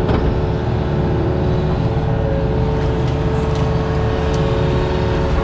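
Compact diesel earthmover's engine running steadily under load, with a constant hydraulic whine. A few short knocks come through as the machine works roots out of the ground.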